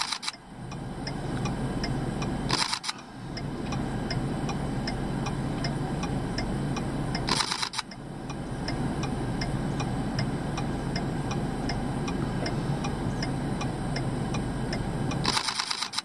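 Mirrorless camera shutter firing in four short bursts of rapid clicks, shooting a burst of frames each time, over a steady low hum inside a stopped car. A faint, regular ticking runs underneath.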